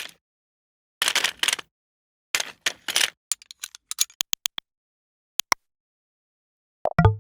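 A string of separate mechanical click sound effects with silent gaps: two short clusters of rapid clicks, then a run of about a dozen single sharp clicks, a quick pair of clicks, and a heavier click with a low thud right at the end.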